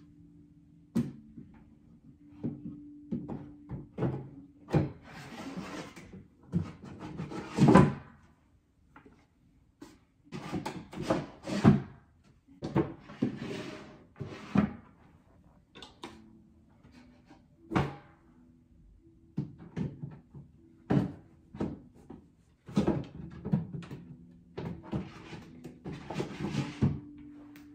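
Solid-pine IKEA Rast drawers being slid into their chests: wood scraping along wooden runners in bouts of a second or two, with sharp knocks as each drawer is set in and pushed shut.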